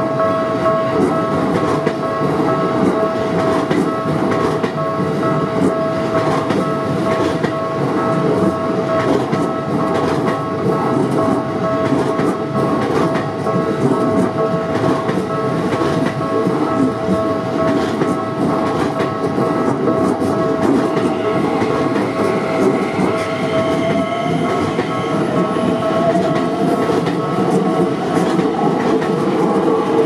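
Electric commuter train running over the tracks at the crossing: a steady rumble of wheels on rail, with a steady high tone throughout and a rising whine starting about three-quarters of the way through.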